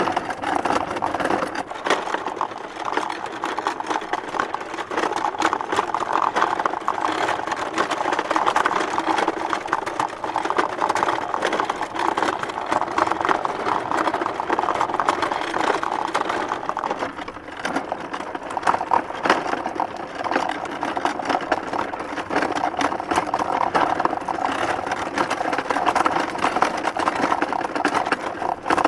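Small wooden hand cart being pulled along a bumpy dirt road: a continuous rattle of wooden boards and wheels, with many small bangs and knocks, easing briefly about two-thirds of the way through.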